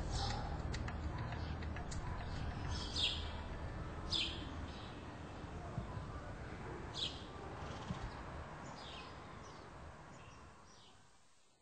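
Birds chirping: short, high, falling chirps every second or two over a steady low background noise, all fading out near the end.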